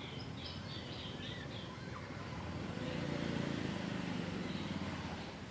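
A few high bird chirps at the start, then a low motor hum that swells about halfway through and fades again, like an engine passing by.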